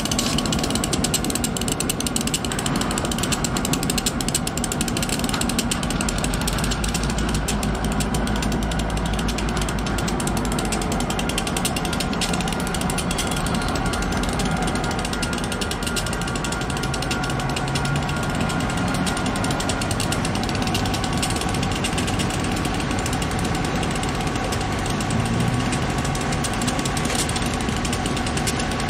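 Freight train rolling past, its wheels making a rapid, continuous clicking and clattering over the rails.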